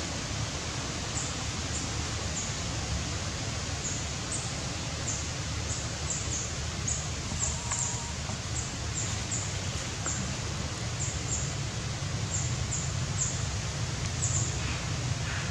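Outdoor forest ambience: a steady background hiss and low hum with frequent short, high-pitched chirps repeating irregularly, about two a second.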